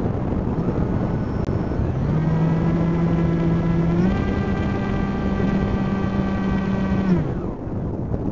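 Camera drone's electric motors whining over rushing wind noise. The whine steps up in pitch about halfway through, then slides down and fades out near the end.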